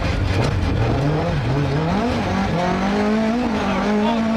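Rally car engine heard on board at speed on a special stage: the revs drop over the first second or so, then climb again about halfway through and hold high with small wavers.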